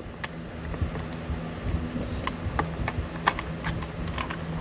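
Irregular sharp clicks and light knocks of a plastic sharpening stand being handled and fitted, over a steady low hum.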